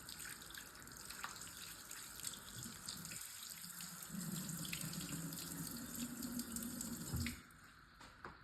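Tap running water into a sink, shut off about seven seconds in. A low steady hum joins the rush of water about four seconds in and stops with it.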